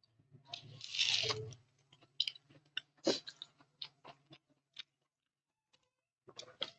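A person biting into and chewing crisp fried food: a loud crunchy bite about a second in, then a run of short crackling crunches, a brief pause, and more chewing near the end.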